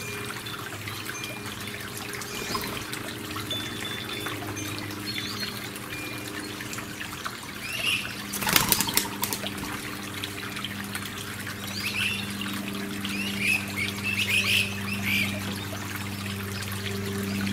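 Water trickling steadily over a low, even hum, with small birds chirping now and then, more often in the second half. About eight and a half seconds in, a brief loud burst of clicks stands out.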